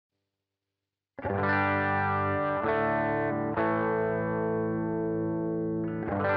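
Distorted electric guitar with a chorus effect, played through a Boss GT-1 multi-effects processor: held chords ring out, starting about a second in and changing to a new chord several times.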